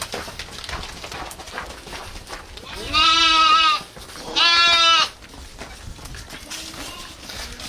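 Goat bleating twice: two loud, wavering calls under a second each, about half a second apart.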